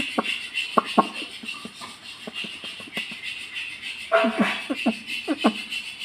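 Indian ringneck parakeet chewing and tearing at a small plastic wrapper with its beak: irregular crinkling and sharp crackles, with a few short pitched squeaks about four to five and a half seconds in.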